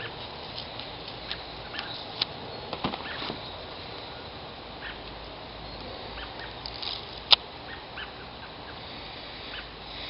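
Scissors trimming a neoprene pad: quiet handling with a few sharp snips, the loudest about seven seconds in.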